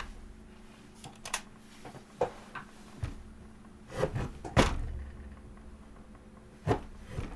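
Improvised foley recorded by hand for a man sliding along a train: scattered knocks, bumps and clicks of objects being handled, one every second or so, with the loudest thump about four and a half seconds in.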